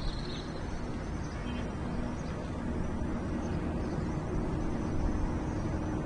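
Steady urban street ambience: a low, even rumble of distant traffic. A faint held low note comes in about halfway through.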